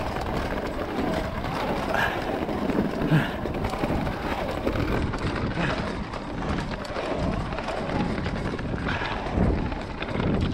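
Electric mountain bike descending a rough singletrack: tyres crunching over dirt and stones, with frequent knocks and rattles from the bike over bumps and a low rumble of wind on the camera microphone.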